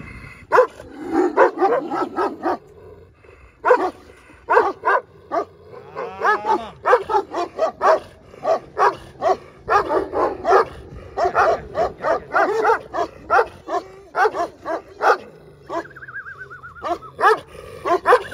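Dogs barking over and over, short barks coming one to two a second and sometimes overlapping, with a high whine near the end.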